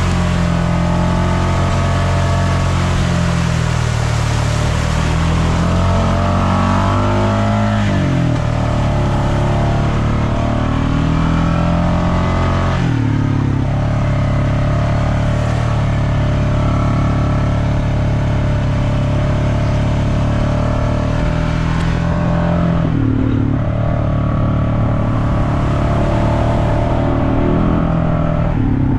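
Off-road vehicle engine running under steady throttle. Its pitch changes abruptly a few times as the revs shift.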